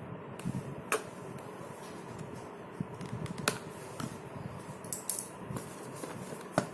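A Samsung Galaxy M52 5G's cardboard retail box being opened and handled: soft rustling and sliding, broken by a handful of sharp clicks and taps.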